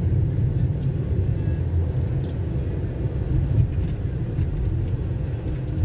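Steady low rumble of a car driving, engine and road noise, heard from inside the cabin.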